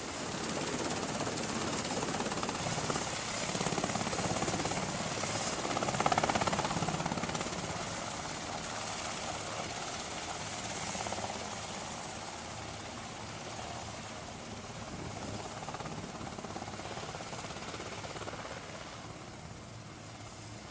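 Navy MH-60 Seahawk helicopter's rotor and turbine noise as it hovers off the deck and then flies away, loudest about six seconds in and fading steadily after.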